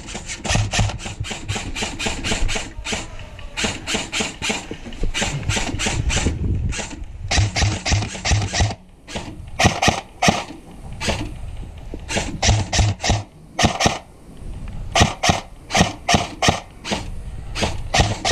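Airsoft guns firing rapid strings of shots, several snapping shots a second, with short pauses between strings.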